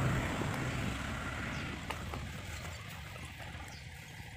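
Road traffic noise: a passing vehicle's engine and tyre rumble fading away.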